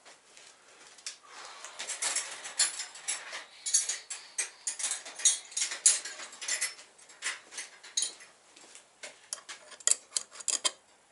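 Irregular clinks and clatter of metal hand tools being picked up and handled while searching for a wrench of the right size for the chain master-link press.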